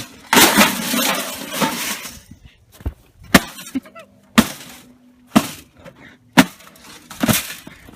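Toaster oven being smashed: a loud crash of breaking glass and metal, then a run of sharp blows roughly one a second.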